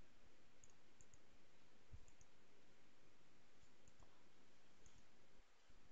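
Faint computer mouse clicks over near-silent room tone, several of them in quick press-and-release pairs, with a soft low thump about two seconds in.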